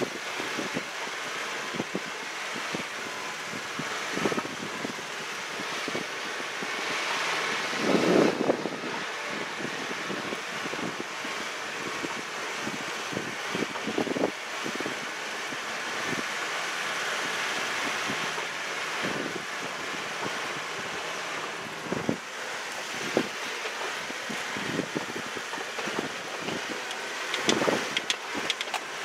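Toyota 4x4 driving slowly over a rough dirt trail: steady engine and tyre noise with wind buffeting the microphone, broken by thumps and rattles as the vehicle jolts over ruts, the biggest about eight seconds in and another cluster near the end.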